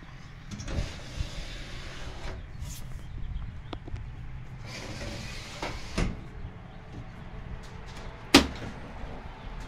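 The storage drawer of an electric range sliding on its metal rails, twice, ending with a thump about six seconds in, then a single sharp metal clank near the end as the oven door is opened.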